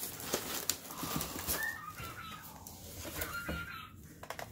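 A few short, high chirping calls from caged pets, over the rustling and clicking of a cardboard box being handled.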